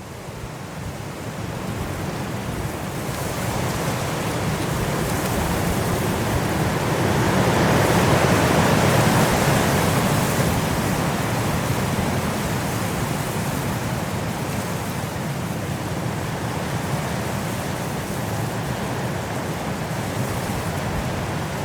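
Strong blizzard wind blowing steadily, a dense rushing noise that builds over the first few seconds and is loudest about eight to ten seconds in.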